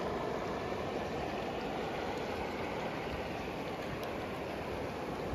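Shallow river water running over a stony bed, a steady, even rushing.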